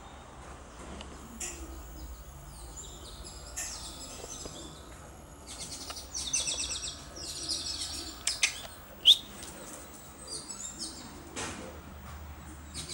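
Small birds chirping and trilling in quick runs of short high calls, busiest partway through, with one sharp loud chirp about nine seconds in. A steady low hum runs underneath.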